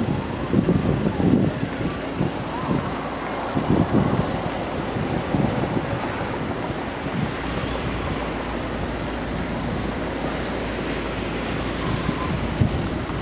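A car driving: steady road and engine noise, with low rumbling surges in the first few seconds.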